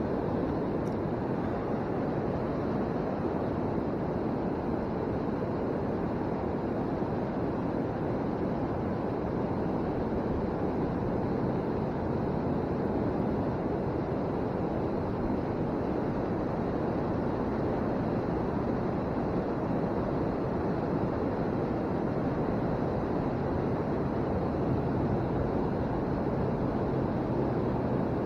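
Steady rush of flowing river water, an even noise that holds level with no breaks, with a faint low hum under it in the latter part.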